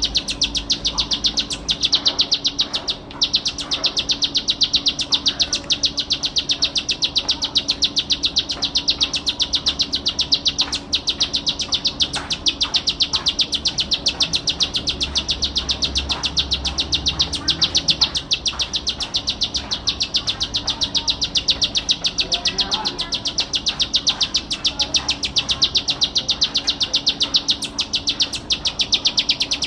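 Plain prinia (ciblek sawah) singing: a rapid, unbroken series of high notes that keeps up without pause.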